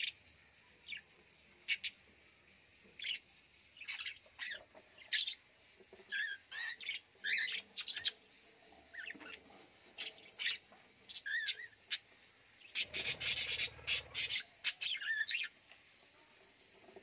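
Caged budgerigars chirping and warbling in short, scattered high calls, some with quick pitch sweeps. About two-thirds of the way through there is a louder, denser burst of about a second and a half.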